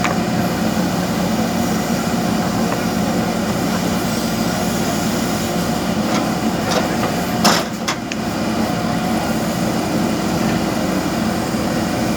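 JCB backhoe loader's diesel engine running steadily while working, with a few sharp knocks about six and a half to eight seconds in.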